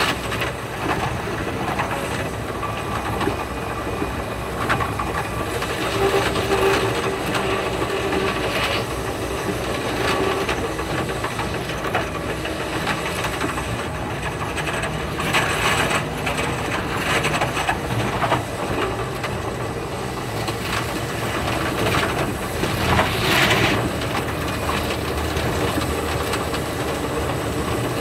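Thunderbird limited express electric train running, heard from inside a passenger car: a steady rumble and rush with frequent short clatters from the wheels over the rail joints, sped up to five and a half times normal speed.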